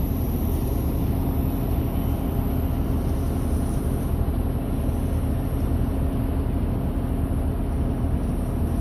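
A steady low mechanical hum with a noisy wash over it, unchanging throughout.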